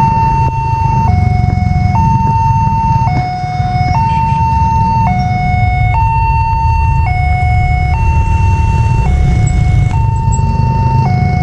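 Railway level-crossing warning alarm sounding a two-tone electronic siren, alternating between a higher and a lower tone about once a second, over a steady low rumble. It signals an approaching train as the crossing barriers come down.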